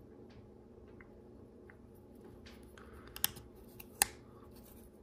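Faint clicks and light rattling of plastic LEGO Technic pieces being handled and pressed together, with two sharper clicks about three and four seconds in.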